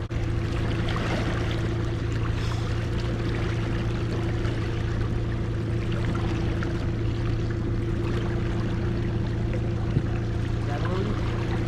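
Boat's outboard motor running steadily at trolling speed, a constant low hum, with water rushing along the hull. A single light knock about ten seconds in.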